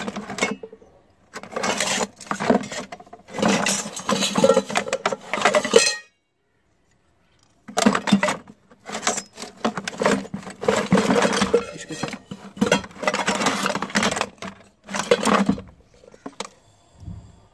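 Scrap metal clattering and clinking in a plastic tub as hands rummage through pipes, tins and tool parts. It comes in two long spells of jostling with a silent pause of about a second and a half between them, and fades to a few light knocks near the end.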